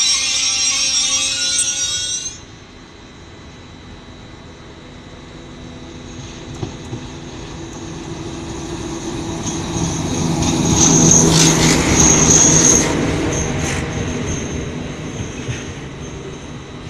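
A BB 67400 diesel locomotive running light along the station tracks. Its low engine rumble and a high whine build to their loudest about ten seconds in, then fade as it passes. At the start a high metallic rail squeal and hiss cuts off sharply about two seconds in.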